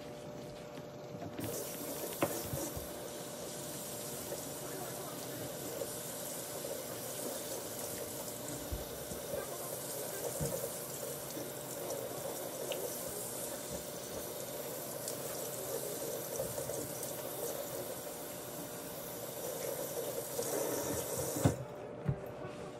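Kitchen sink faucet running, with water splashing over hair and into the sink. It comes on about a second and a half in and cuts off suddenly near the end, with a couple of knocks as it stops.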